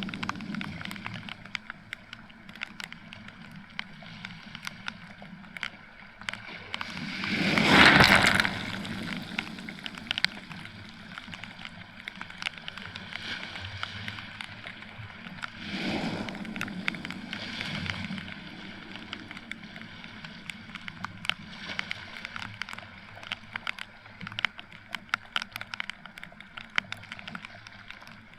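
Small waves washing up the beach. The biggest surge comes about eight seconds in, with weaker ones later. Raindrops tick steadily on the action camera's housing throughout.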